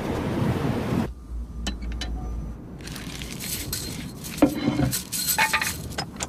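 Cartoon sound effects: a rushing noise that cuts off about a second in, then a few thin clicks and scattered glassy, metallic clinks and tinkles that build toward the end.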